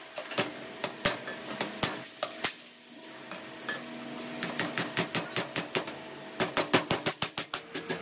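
Hammer strikes on the steel mounting bracket of a refrigerator compressor shell, metal on metal, straightening it. Sharp blows come irregularly at first, pause briefly around three seconds in, then return in a steadier run that quickens near the end.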